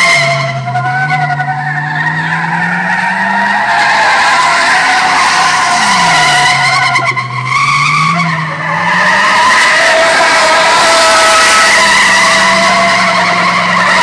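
Truck spinning its tyres in a sideshow burnout, with loud continuous tyre squeal over an engine held at high revs. The engine note dips and climbs back twice, then holds steady near the end.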